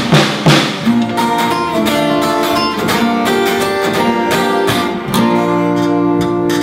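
Small rock band playing live: electric and acoustic guitars strumming chords, with a couple of sharp drum hits in the first half-second. A new chord rings out from about five seconds in.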